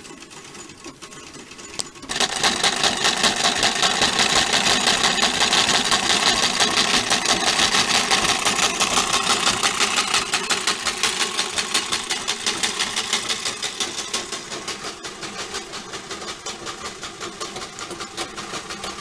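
1926 Singer sewing machine running, its stitching mechanism clattering in a fast, even beat of about four strokes a second. It starts up abruptly about two seconds in and grows somewhat quieter over the second half.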